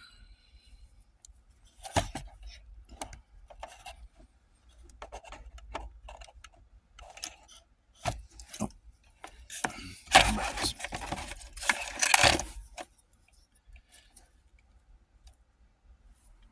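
Hand work on a car's shifter wiring: scattered plastic clicks and knocks as electrical connectors are handled and plugged in. About ten seconds in there is a louder stretch of rubbing and rattling lasting a few seconds.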